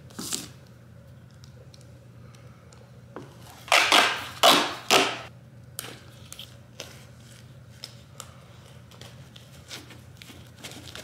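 Tape being pulled off a roll in loud, quick rips: one short rip right at the start and four close together about four seconds in, then small crinkles and taps as the tape is handled and pressed around a worn boot.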